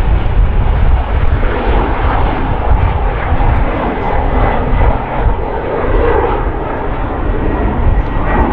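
Embraer E-Jet regional airliner's twin turbofan engines at takeoff power during lift-off and initial climb: a loud, steady jet rumble.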